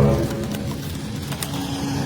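Background music that comes in suddenly at the start, with steady held tones.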